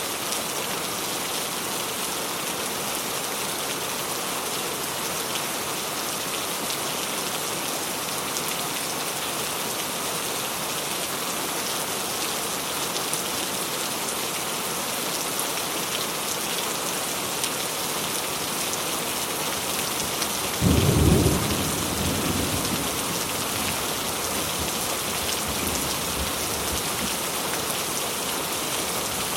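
Steady rain falling, an even hiss. About two-thirds of the way through, a short low clap of thunder, the loudest sound of the stretch, which fades out in a rumble over a few seconds.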